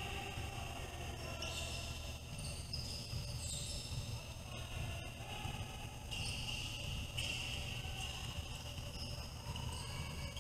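Basketball game sound in a gym: the ball bouncing on the court over low background voices from the crowd, with high held squeaky tones coming and going.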